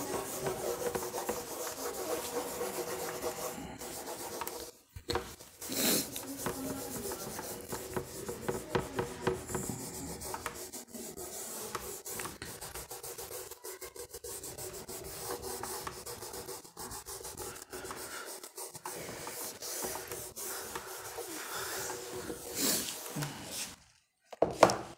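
Whiteboard duster rubbing back and forth across a whiteboard, wiping off marker writing in continuous scratchy strokes.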